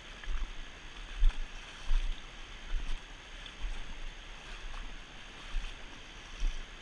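Steady rush of river water, with irregular low bumps and thuds on the microphone.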